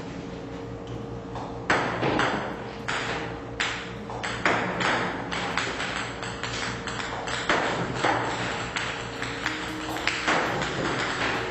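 A series of irregular sharp knocks or taps, each with a short ring, about one a second, over a steady low hum.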